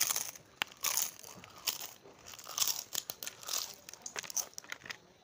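Crispy fried sheets being bitten and chewed close to the microphone: a series of irregular sharp crunches, roughly one every half second to a second.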